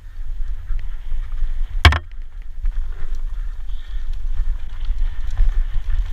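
Downhill mountain bike rattling over a rocky dirt trail, heard from a handlebar-mounted action camera, under a steady low rumble of wind on the microphone. A single sharp knock about two seconds in.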